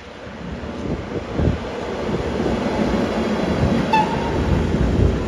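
A freight train running through the station: a steady rail rumble that grows louder, with two brief high-pitched tones near the end.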